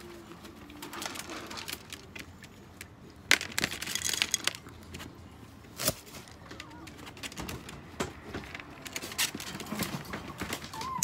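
Chihuahua eating dry kibble from a ceramic bowl: irregular crunching and clicks, with sharper knocks about three and six seconds in.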